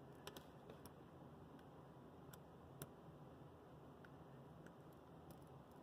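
Near silence with faint, scattered clicks as a small screwdriver works the plastic brackets off a model locomotive motor.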